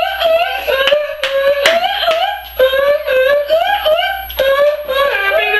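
A high-pitched melody sung in a steady run of notes, with two sharp hand claps a little over a second in.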